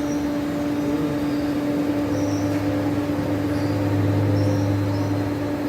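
Slideway grinder running: a steady machine hum with a constant tone, joined about two seconds in by a deeper hum.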